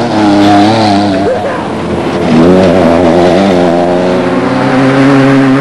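Off-road desert race vehicle's engine running hard, its pitch rising and falling with the throttle and climbing again a little after two seconds in.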